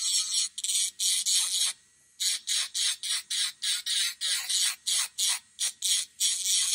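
Electric nail file with a ceramic bit grinding a sculpted acrylic nail in short repeated passes, a hissing rasp about two or three times a second, with a brief pause about two seconds in. The bit is shaping the hardened acrylic product, not the natural nail.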